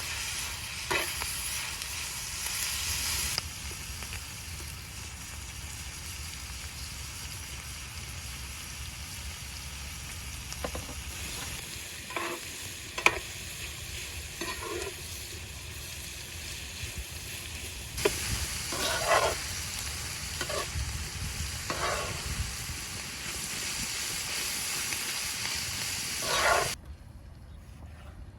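Food frying in oil in a pan, sizzling steadily, with a utensil now and then scraping and knocking against the pan as it is stirred. The sizzle stops abruptly near the end.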